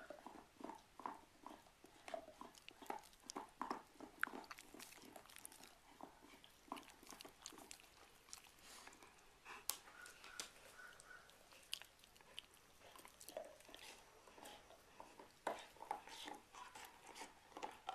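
Golden retriever chewing, with many irregular, crisp crunches and clicks.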